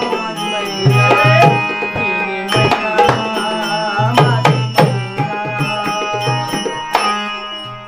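Marathi folk song accompaniment: a dholki drum beating a quick rhythm, with small brass hand cymbals and an electronic keyboard carrying the melody. The music gets quieter near the end.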